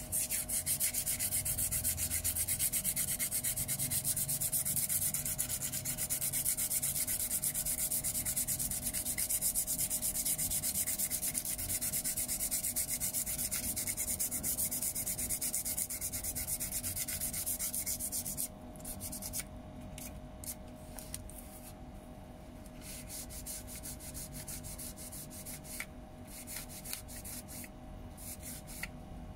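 Sandpaper rubbed by hand on the plastic face of a Nissan 180SX digital climate control panel: rapid back-and-forth scratchy strokes, which drop off about two-thirds of the way through to quieter, occasional scrapes.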